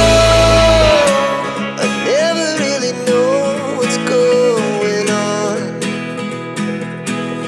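Background music with guitar and a melody line that slides between notes; a heavy low part drops out about a second in.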